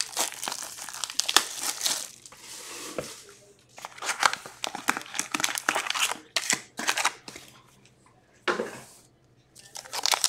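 Foil wrappers of Upper Deck Trilogy hockey card packs crinkling and tearing as packs are pulled from the box and ripped open, in irregular crackly bursts with a couple of short pauses.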